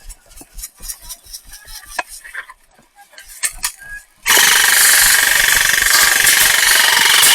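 Scattered sharp clicks, then about four seconds in a sudden loud, fast continuous rattle that keeps going: an airsoft gun firing a long full-auto burst close to the microphone.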